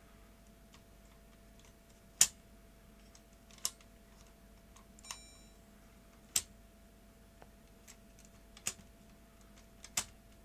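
Sharp plastic clicks, about five spread out, as a partly dismantled Sony DCR-HC51E camcorder is handled and its controls worked, with a short beep about halfway through.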